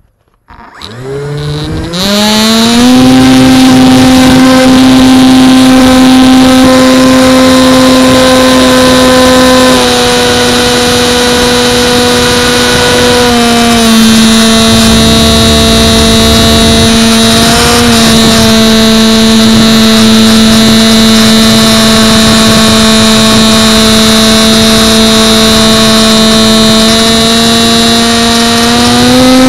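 RC model airplane's motor and propeller heard from an onboard camera: a whine that spools up quickly in the first two seconds as the throttle opens for takeoff, then holds steady. It drops a little in pitch about 13 seconds in and climbs again near the end, with a steady rush of air behind it.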